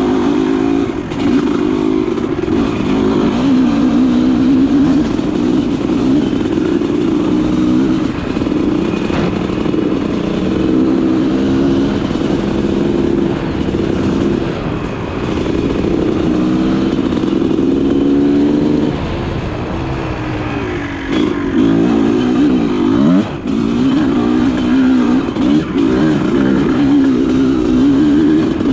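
Honda CR250R two-stroke dirt bike with an aftermarket pipe, ridden hard, its single-cylinder engine revving up and down with the throttle throughout. The revs drop back for a couple of seconds about two-thirds of the way through, then pick up again with quick rising and falling sweeps.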